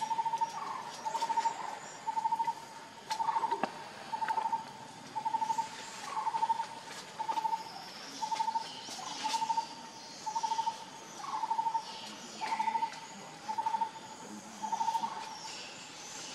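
A wild animal's short trilled call on one pitch, repeated about once a second and stopping shortly before the end, over a faint high buzz of insects.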